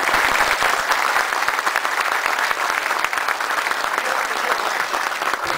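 Many people applauding steadily, a dense run of hand claps.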